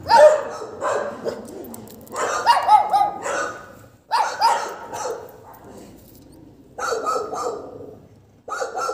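A dog barking in four bursts of several quick barks each, with short pauses between the bursts.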